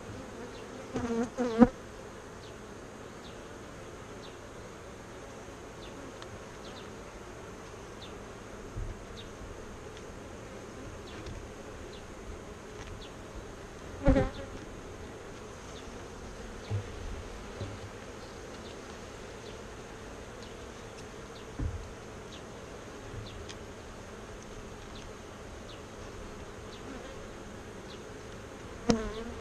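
Honeybees buzzing steadily around an open hive, with several short knocks from handling the hive, the loudest about halfway through.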